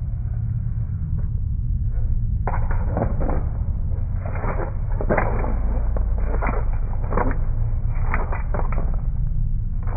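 Flat paintbrush stroking thick acrylic paint across a textured board: a string of short, irregular scratchy swishes, closer together after the first couple of seconds, over a steady low hum.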